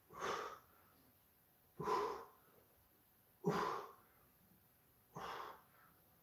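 A man's forceful exhalations during push-ups, one sharp breath out with each rep, four in all at a steady pace of about one every second and a half to two seconds.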